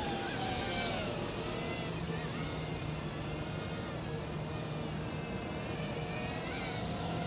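Crickets chirping in a steady rhythm, about three high chirps a second, with the faint whine of a small quadcopter's electric motors and propellers rising and falling in pitch as the throttle changes.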